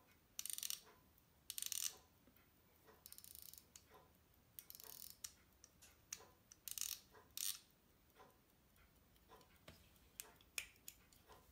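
Pocket watch ticking faintly and steadily while it is handled, with several short scrapes and a few sharp metallic clicks from its case being worked shut in the fingers.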